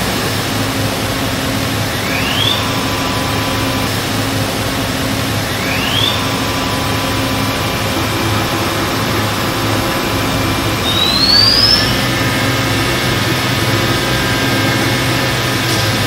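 Makino A71 horizontal machining center running, with a steady hum and hiss. Its spindle whine rises in pitch three times, about 2, 6 and 11 seconds in. The last rise goes highest, and the whine holds at a higher pitch after it.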